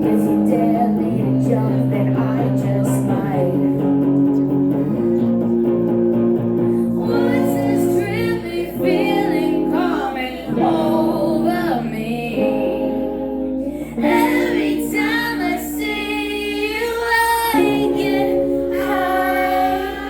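A live song played on guitar with a woman singing: steady guitar chords carry the first several seconds, and a held, wavering vocal line comes to the fore from about seven seconds in.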